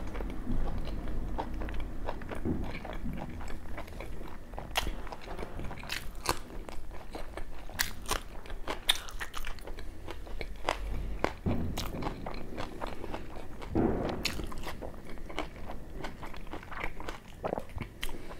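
A man chewing a large mouthful of puri and mutton curry close to the microphone, with many irregular sharp mouth clicks.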